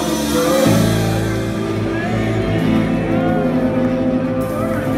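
Live rock band playing, with electric guitars, bass guitar, keyboards and drums under a singer's vocal, heard from within the audience.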